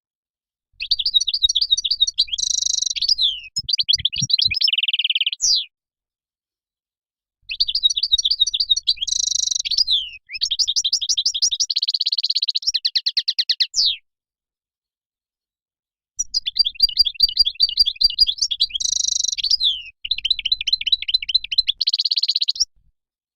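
European goldfinch song: three phrases of fast twittering trills and buzzy notes, each a few seconds long, separated by a couple of seconds of dead silence as in an edited, looped recording.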